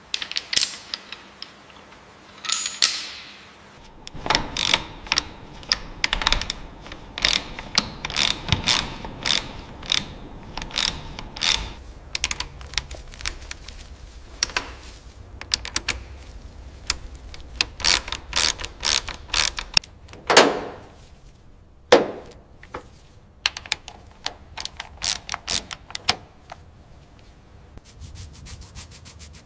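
Restoration work with hand tools on metal parts: a long run of quick clicks, taps and ratchet-like ticks, with two louder single knocks about twenty seconds in and a faint low hum underneath.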